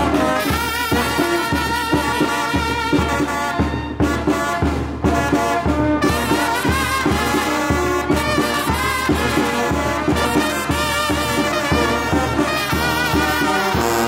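A small youth brass band playing a jarabe from Guerrero. Trumpets and trombone carry the melody over a tuba, and a bass drum keeps a steady beat about twice a second.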